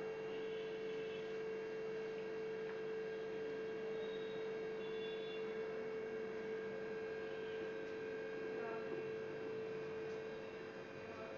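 A steady electrical hum with one strong constant mid-pitched tone, unchanging throughout, with a few faint short high chirps about four and five seconds in.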